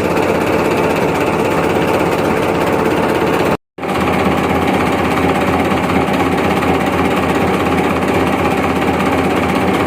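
Mitsubishi 4D31 four-cylinder diesel engine of a jukung river boat running steadily and loudly. The sound drops out completely for a split second about three and a half seconds in, then the engine carries on unchanged.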